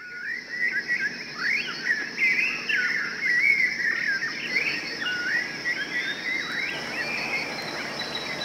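High, warbling animal calls: rapid squeaky glides that rise and fall without a break, over a steady high hiss.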